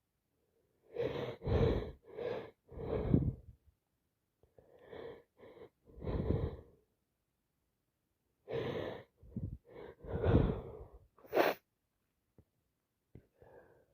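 A woman congested with a cold turned sinusitis, sneezing, sniffing and breathing heavily through a blocked nose in short, noisy bursts. The bursts come in three clusters with short pauses between them, and the sharpest one comes near the end.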